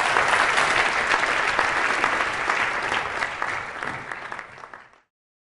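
Audience applauding, a dense steady clapping that tails off and cuts out abruptly near the end.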